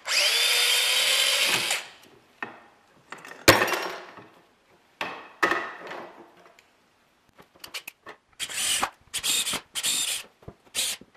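Corded electric drill driving screws for a stair rail bracket: it spins up and runs steadily for about two seconds, there is a sharp knock about three and a half seconds in, and then it runs in shorter bursts, ending in a string of quick trigger bursts.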